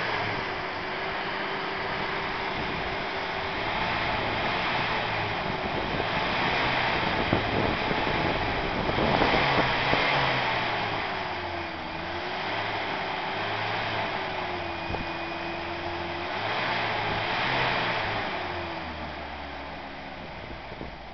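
1982 Toyota pickup's four-cylinder engine running with its revs slowly rising and falling several times, while the Seafoam treatment burns off as smoke from the exhaust.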